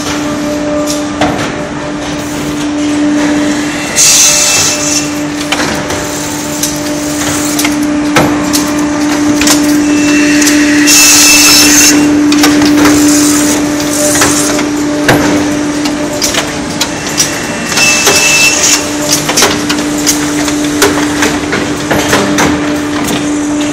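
Automatic block-gluing machine for chipboard furniture strips running: a steady hum under frequent clacks and knocks of wooden parts, with short hisses of air several times as its pneumatic cylinders release.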